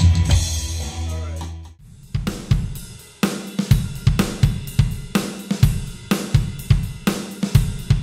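Music with a sustained low bass line fades out over the first two seconds. After a short gap, a drum kit starts a steady rock beat on its own, with kick, snare and hi-hat or cymbal strikes several times a second.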